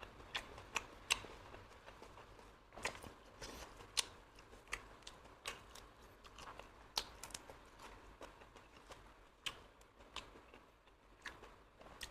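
Close-up eating sounds of someone chewing meat-stuffed apple snails: wet smacks and sharp little clicks at irregular intervals.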